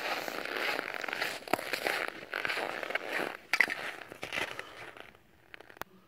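Footsteps crunching over snow-covered river ice, an irregular run of crunchy crackles that stops about five seconds in.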